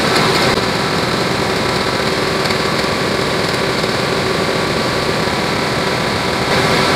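Steady mechanical drone of a machine running in the shop, with a constant hum. It gets a little louder about six and a half seconds in, and there are a couple of faint knocks near the start.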